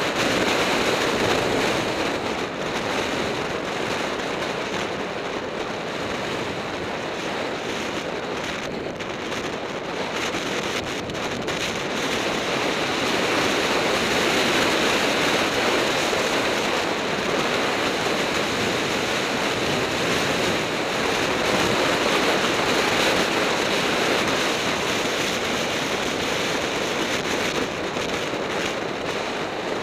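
Wind rushing over an action camera's microphone during a fast road-bike descent: a steady loud rush of noise with no engine or voices, swelling somewhat in the middle and easing off near the end.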